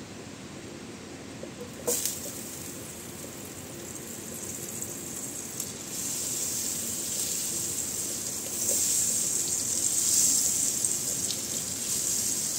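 Butter sizzling in hot oil in a nonstick frying pan. The hiss starts suddenly about two seconds in and grows louder as the butter melts and foams.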